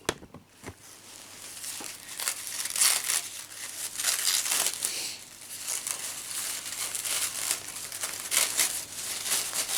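Gift wrapping being crumpled and crinkled by hand: a few light clicks, then a crackling rustle that builds about a second in and goes on in uneven spurts.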